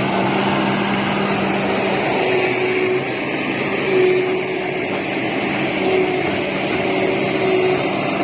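Backhoe loader's diesel engine running steadily under working load. From about two seconds in, a higher tone comes and goes several times over the engine noise.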